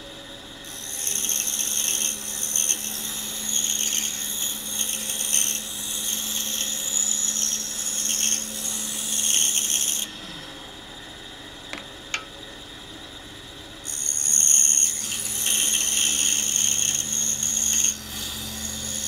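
Pegas saw cutting through a small block of buckeye wood with a fine number 9 blade, a steady rasping hiss. The cut stops about ten seconds in, leaving the saw running with a couple of light clicks, and resumes about four seconds later.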